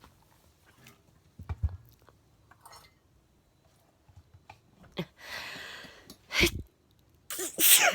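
Scattered handling knocks and rustles, with a soft breathy hiss about five seconds in and a loud sharp burst near the end.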